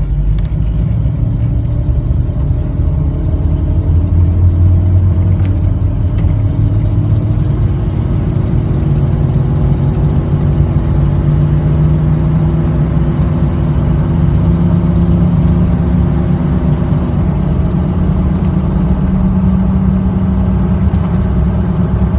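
Chevrolet Silverado pickup's engine and exhaust running steadily, the engine note climbing slowly midway. It carries the sound of an exhaust manifold leak, which the owner guesses is on the driver's side.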